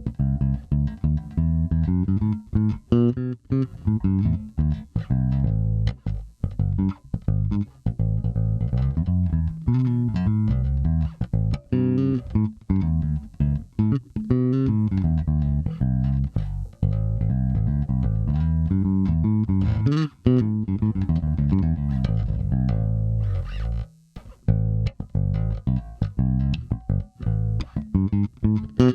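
Nordstrand Acinonyx short-scale electric bass played in a busy line of plucked notes, with a short break about 24 seconds in.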